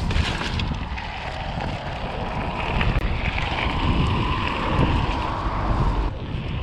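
Wind buffeting the microphone over the steady rumble of mountain bike tyres rolling along a trail, with a few faint clicks.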